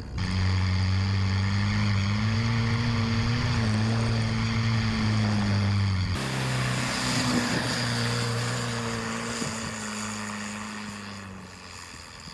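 Toyota 4x4 pickup's engine running steadily under load as it pushes through deep snow, its pitch rising a little about two seconds in. From about halfway a hiss of thrown snow joins it, and the engine fades as the truck pulls away near the end.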